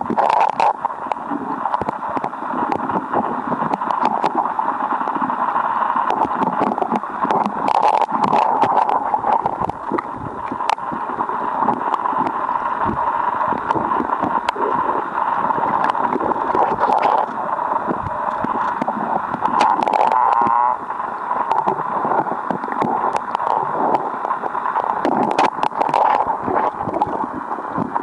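Strong river current recorded underwater: a steady rushing, gurgling noise, broken by frequent sharp clicks and knocks against the rock bed.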